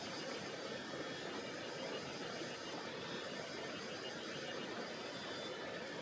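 Tonghou River flowing with a steady, unbroken rush of water.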